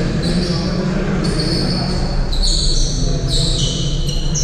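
A basketball bouncing on a sports-hall floor and players calling out at the far end of the court, echoing in the large gym over a steady low rumble.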